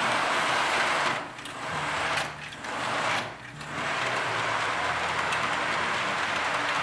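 H0 model freight trains rolling over curved three-rail track with a home-made brass-wire centre conductor, giving a steady rolling rumble of wheels and pickup shoes on the rails that dips briefly three times in the first half.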